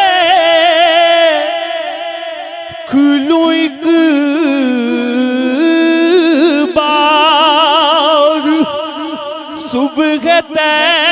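Male naat reciter singing an Urdu naat into a handheld microphone: long drawn-out phrases with heavy vibrato, held on one syllable, with a softer stretch about two seconds in.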